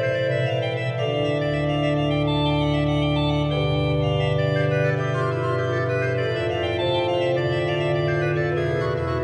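Five-stop portative chamber organ by Taylor and Boody playing a slow tiento in several parts, with long held pipe notes that change every second or two.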